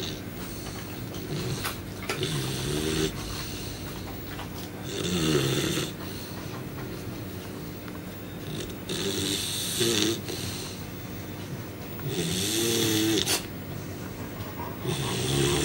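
A sleeping pet snoring in slow, even breaths, about five snores one every three to four seconds, each pitched and breathy.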